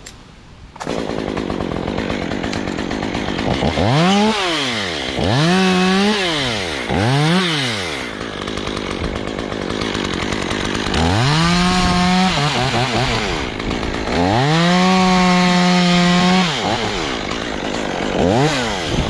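Stihl two-stroke chainsaw idling and revving: three quick blips of the throttle, then held at high revs twice for about two seconds each, with a short rev again near the end.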